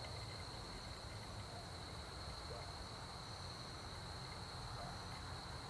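Faint night-time insect chorus, a steady high-pitched trill, over a low rumble.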